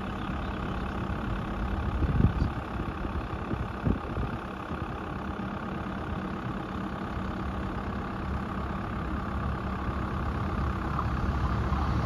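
Tractor's diesel engine idling steadily, with two short knocks about two and four seconds in. Near the end a low rumble builds as the diesel train approaches.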